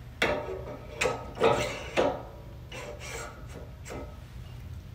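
Dynamic wheelchair footrest parts being handled: the lower extension shaft knocking and sliding into the footrest's housing assembly, a series of light knocks about half a second apart, then softer rubbing and one more knock near the end.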